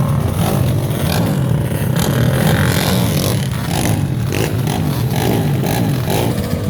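Small racing ATV engines running and revving up and down.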